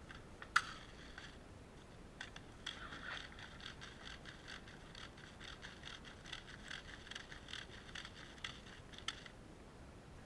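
Rustling and scraping, dense and irregular for most of the stretch, with a single sharp click about half a second in.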